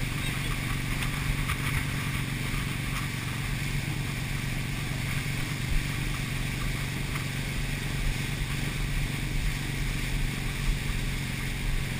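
Motorboat engine running steadily at speed, with the rush and splash of the churning wake behind the stern.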